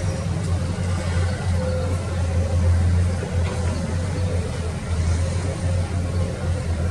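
Diesel engines of Komatsu PC210 hydraulic crawler excavators running while they dig: a steady low drone that swells a little about three seconds in.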